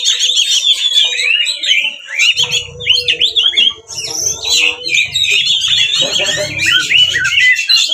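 Oriental magpie-robin (kacer) singing without a break, a fast run of varied whistled phrases with quick rising and falling notes. A low rumble sits under the song from about a third of the way in until near the end.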